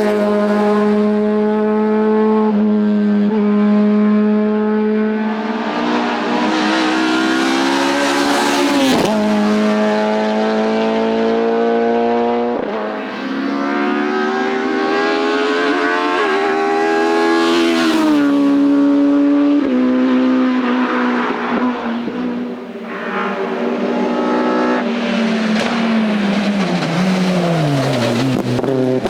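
Racing car engine at full throttle on a hillclimb, its note climbing and then dropping sharply at each upshift, four times. The pitch falls away near the end as the car slows.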